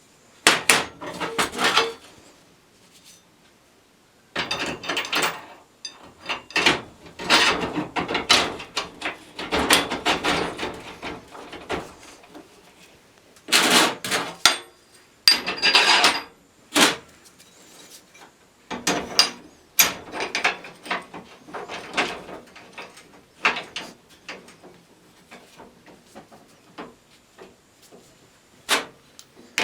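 Irregular clattering and rattling of hard parts being handled, in short bursts with brief pauses between them.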